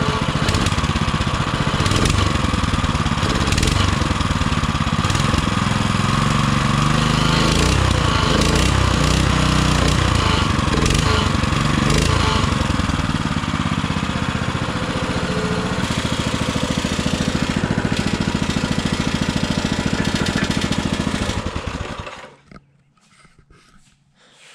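Baja Warrior mini bike's small single-cylinder engine running through a loud, raspy exhaust that sounds like a lawnmower, its pitch rising and falling a little in the middle. The engine is running smoothly on a newly fitted carburetor, and it shuts off suddenly about 22 seconds in.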